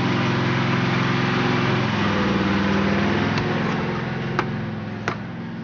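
A steady, engine-like motor hum that fades from about four seconds in, with a few sharp clicks in the last two seconds.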